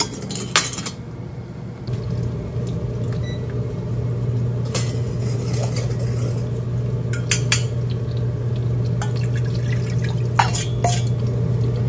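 A metal spoon and ladle clink against stainless steel bowls several times as teriyaki sauce is stirred and spooned into a pot. A steady low hum sets in about two seconds in.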